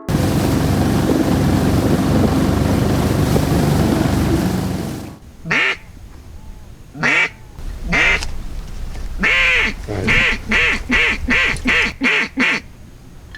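Duck quacking: three single quacks, a longer one, then a quick run of about seven quacks that stops sharply, in the manner of a mallard hen. Before it, a loud steady rushing noise runs for about five seconds and cuts off abruptly.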